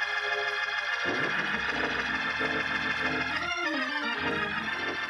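Organ playing sustained chords behind a pause in the preaching, shifting to new chords about a second in and again around three and a half seconds.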